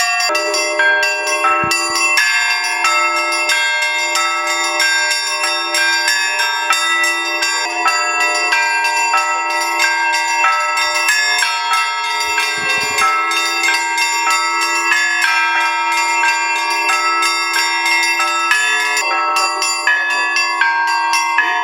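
Russian Orthodox church bells rung together: smaller bells struck in quick, overlapping patterns over a deeper bell that keeps ringing underneath.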